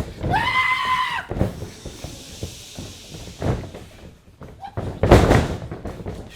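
Heavy slams of wrestlers hitting the ring canvas, echoing in a hall: one about a second and a half in, another about three and a half seconds in, and the loudest, doubled, about five seconds in. Near the start there is a high, held cry lasting about a second.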